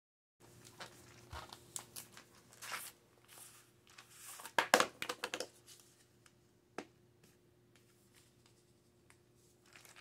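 Hands handling a plastic jar of peanuts: crinkling plastic and rattling nuts, with a loud flurry of rattling about halfway through, then a few scattered clicks.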